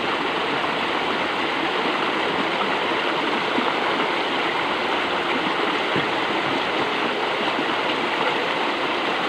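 Water rushing steadily along a concrete drainage channel, an even, unbroken flowing noise.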